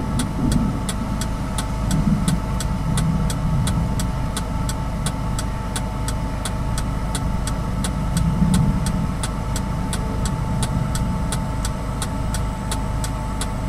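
Car engine idling steadily, heard from inside the cabin, with a steady hum and a faint, even ticking about three times a second.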